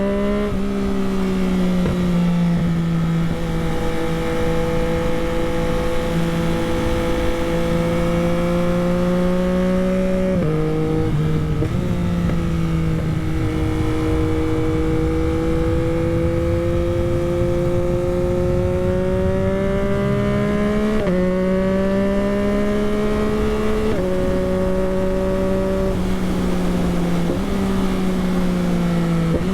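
A 2021 Yamaha MT-09's 890 cc inline-three running through an Akrapovic race exhaust while riding. The note rises and falls with the throttle, and its pitch jumps suddenly a few times, about 10, 21, 24 and 27 seconds in.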